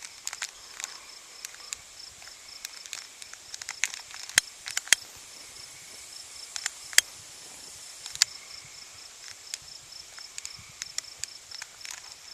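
Crickets chirping in a steady, fast high-pitched trill, with scattered sharp clicks and taps close by, the loudest about four, five and seven seconds in.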